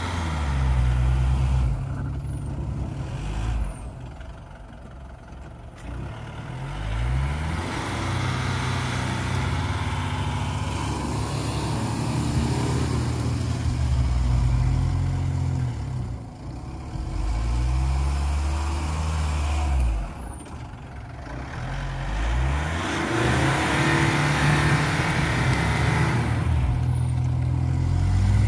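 SUV engines revving hard in several long surges with short lulls between, wheels spinning and churning through mud, as one vehicle pulls another stuck one out of the mud on a recovery strap.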